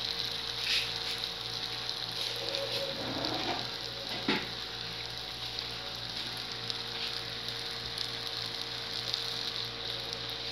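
Balls of yeast dough deep-frying in hot oil: a steady crackling sizzle. A single sharp click stands out about four seconds in.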